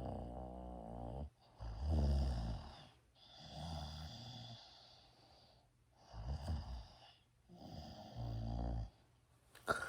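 A sleeping person snoring, five noisy breaths in about ten seconds, each one a low rattling snore lasting about a second. A sharp click comes just before the end.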